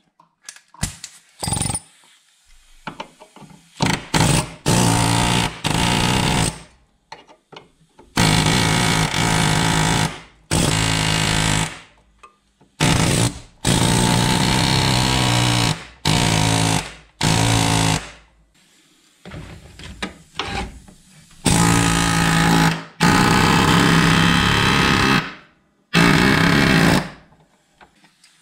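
Pneumatic air chisel hammering through sheet metal in repeated bursts of one to three seconds, cutting the old rocker panel free after its spot welds were drilled out.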